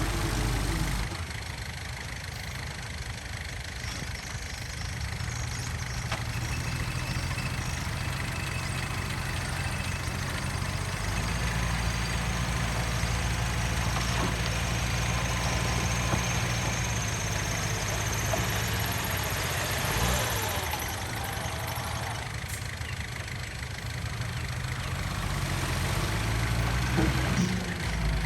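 Heavy-equipment diesel engine running, its pitch and level shifting a few times as it works.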